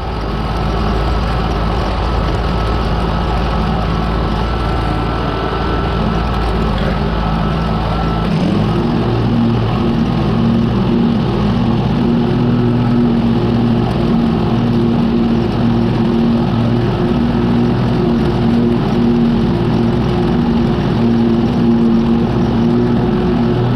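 Exmark Turf Tracer walk-behind lawn mower's engine running steadily while cutting grass; its note changes about eight seconds in.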